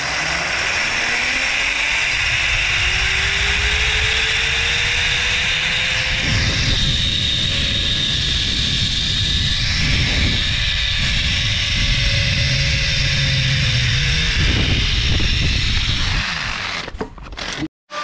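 Zipline trolley pulleys whirring along the steel cable, with heavy wind rushing over the microphone. The whine rises in pitch as the rider picks up speed, holds steady, then drops as the trolley slows, and the sound cuts off suddenly near the end.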